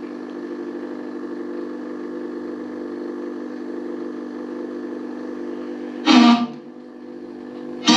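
A steady low drone of several held tones, unchanging in pitch. Two short, loud sounds cut in about six seconds in and again at the very end.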